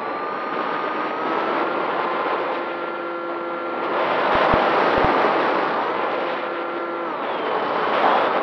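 Propeller motor of a small model aircraft running steadily in flight over wind rush on the microphone. Its pitch rises in the first second or so and drops about seven seconds in, with a couple of brief low buffets from the wind around the middle.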